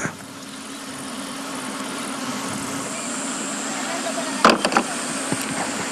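A steady low mechanical hum with a hiss behind it. A short spoken word cuts in about four and a half seconds in.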